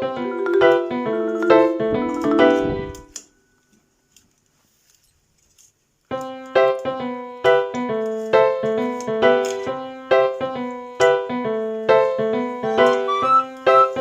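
Background piano music with a steady run of notes; it fades out about three seconds in, leaves about three seconds of near silence, then starts again.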